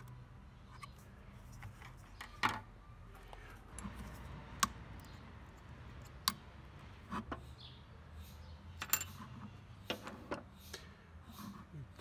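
Irregular small clicks and metallic taps of a screwdriver and pliers working at the wiring of an Electrolux vacuum cleaner motor, cutting out the sleeved part believed to be the thermal cutout that shuts the vacuum off when it heats up.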